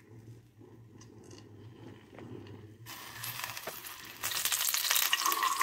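Ghee hitting hot melted sugar in a non-stick pan, sizzling and crackling as it is whisked in. The sizzle starts suddenly about three seconds in and gets louder a second later, after a few light clicks.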